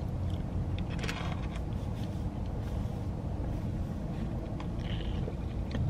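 Steady low rumble of a car, heard from inside the cabin, with faint sips of a frozen lemonade through a straw about a second in and again near the end.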